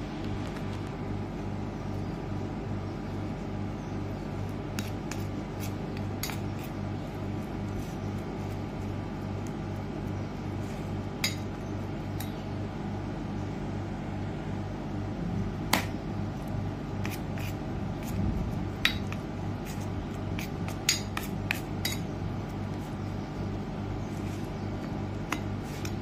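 Steel spoon stirring a thick face-pack paste in a steel bowl, with scattered sharp clinks of spoon on metal, several louder ones in the second half. A steady low hum runs underneath.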